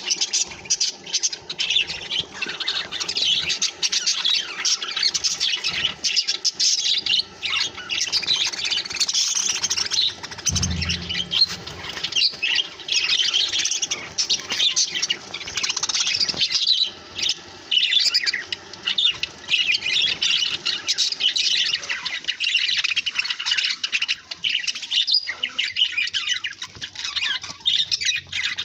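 A group of budgerigars chattering and chirping continuously, with quick squawky warbles overlapping one another. A brief low bump sounds about ten seconds in.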